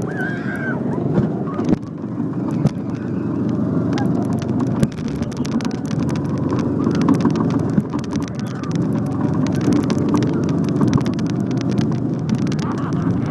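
Go-kart engine running steadily under way, with the kart rattling and clicking as it runs over the track. A rider laughs or whoops in the first second.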